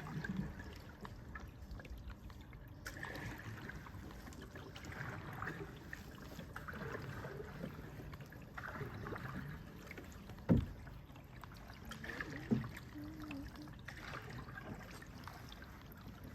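Canoe paddles dipping and pulling through water, with water trickling off the blades in soft, repeated strokes. Two sharp knocks come about two-thirds of the way through.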